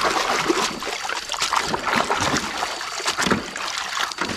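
Water splashing and sloshing in a basin as a hand swishes and scrubs a muddy toy tanker truck under the surface to wash it, with many quick splashes and dribbling water.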